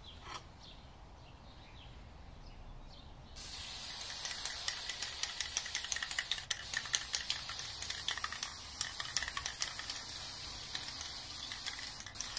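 Aerosol can of black spray paint hissing in a steady spray, starting about three seconds in, with a short break near the end.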